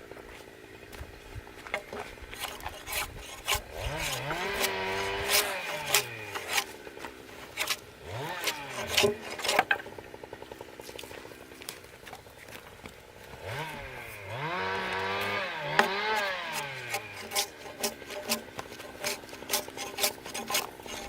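Irregular sharp knocks and taps on wood, with two spells of a pitched sound that glides repeatedly up and down, about four seconds in and again about fourteen seconds in.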